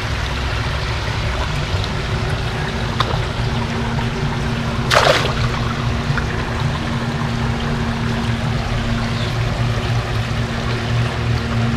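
Koi splashing as a net of them is tipped into a garden pond, one short loud splash about five seconds in, over steady trickling from the pond's waterfall and a steady low hum.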